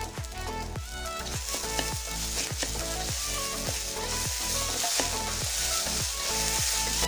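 Food frying in a pan, a steady sizzling hiss that grows louder about a second in, under background music with a steady beat.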